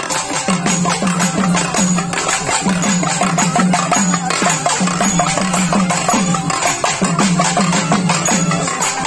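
Traditional percussion music: drums beating a steady repeating rhythm, with jingling metal percussion over it.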